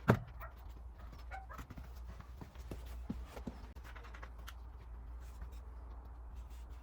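One sharp knock right at the start, then scattered light taps and clicks over a steady low hum.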